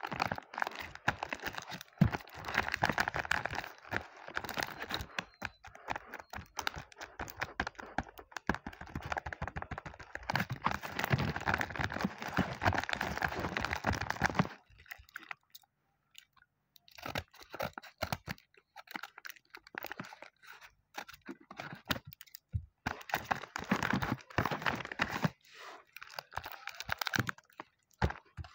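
Paper and clear plastic wrapping crinkling and tearing as a homemade paper blind bag is unwrapped by hand. The rustling stops for about two seconds just past halfway, then resumes in shorter patches.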